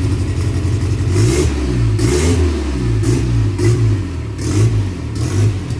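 Turbocharged VW AP engine of a Voyage being blipped on the throttle, its pitch rising and falling several times, with a short hiss at several of the blips.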